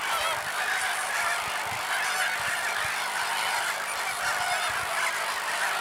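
Greater flamingo breeding colony calling continuously: many birds honking and gabbling at once in an unbroken, goose-like chorus.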